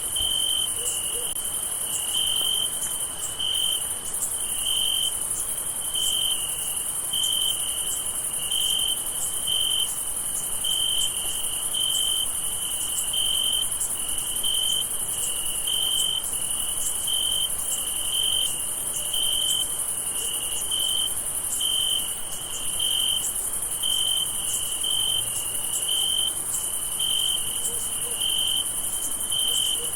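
Crickets chirping: a continuous high trill with a lower, evenly pulsed chirp repeating a little more than once a second.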